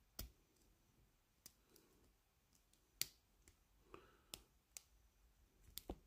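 Faint, irregular metallic clicks of a steel pick and tension wrench working the pins inside an Avocet 4-pin stainless steel shrouded padlock, whose pins include security pins. There are about a dozen clicks, the sharpest about three seconds in and near the end.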